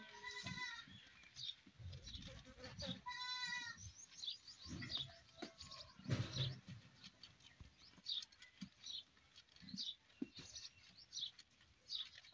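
Goat bleating, a quavering cry at the start and another about three seconds in, while a buffalo calf suckles at its udder. Short high bird chirps run throughout.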